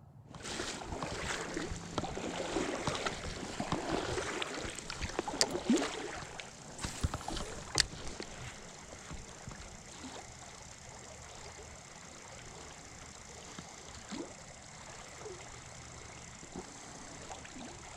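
River water rushing and splashing, busier for the first several seconds with a few sharp clicks, then settling to a steady flow.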